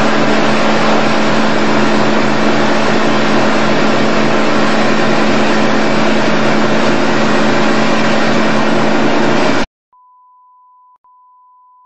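Motorboat under way: a steady engine drone over a dense hiss. It cuts off abruptly near the end, replaced by a quieter steady high-pitched beep tone with one brief break.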